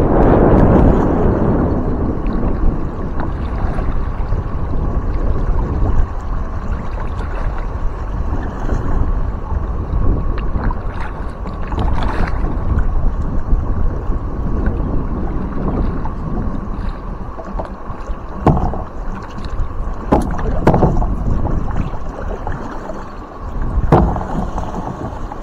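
Steady rush of moving river water and wind on the microphone from a small paddled boat, loudest in the first couple of seconds, with several sharp knocks and splashes in the second half.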